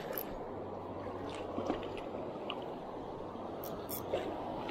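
Steady rush of shallow river water flowing over stones, with a small splash about four seconds in as a hooked barbel thrashes at the surface.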